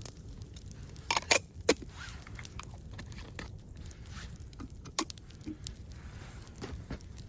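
Campfire crackling: irregular sharp pops and snaps of burning wood, the loudest in a quick cluster about a second in and once more near the middle, over a low steady rumble.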